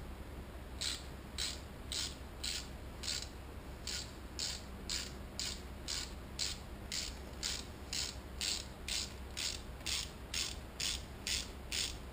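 Hand ratchet wrench clicking in short bursts, about two a second, as it is swung back and forth to turn a bolt. A steady low hum runs underneath.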